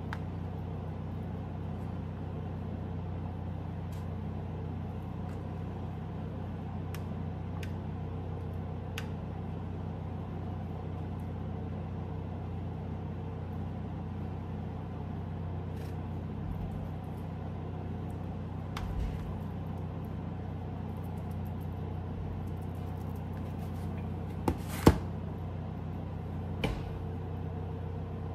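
Steady low electrical hum, with scattered light clicks and a few sharper knocks near the end as utensils and dishes are handled while chicken is portioned onto a plate.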